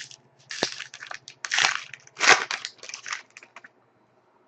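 Trading cards and their packaging being handled: a few short crinkling, rustling bursts over about three seconds, then it falls quiet.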